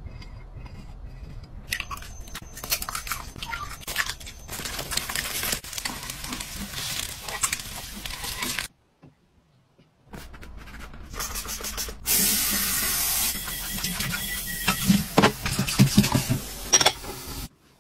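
Eggs sizzling in a four-cup nonstick frying pan, with light scraping clicks, then a break of silence. Next, a tap spraying hard onto a bowl, followed by the clinking and clatter of dishes being washed under the running water.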